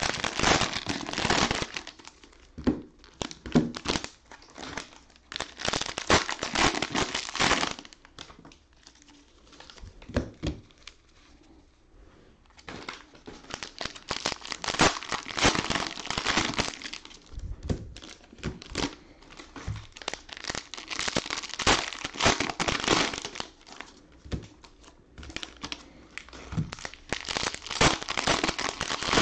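Cellophane wrappers of trading-card cello packs being crinkled and torn open by gloved hands. The crackling comes in spells of a few seconds each, with quieter lulls between, the longest about eight to twelve seconds in.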